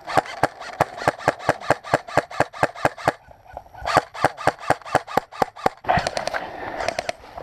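Airsoft gun firing in rapid strings of sharp cracks, about six or seven shots a second. There are two bursts with a short pause about three seconds in, then a rustling haze near the end.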